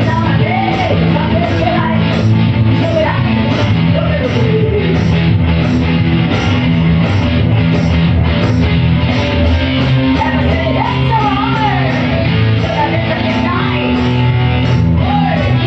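Live blues-rock duo playing loudly on two electric guitars over a steady stomp-box beat, with a woman singing and bending her notes.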